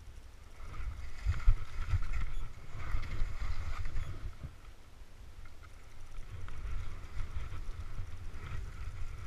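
Skis hissing and scraping through soft, chopped-up snow as the skier turns downhill, with wind rumbling on the helmet camera's microphone. Loudest between about one and four seconds in, during a deep turn that throws up snow, then steadier and quieter.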